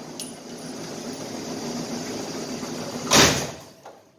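Motorized range target carrier running along its overhead track, bringing the paper target in: a steady mechanical hum for about three seconds, then one loud thump about three seconds in.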